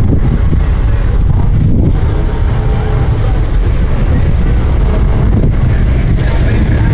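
Car engines and traffic running in a loud, steady low rumble, with voices mixed in.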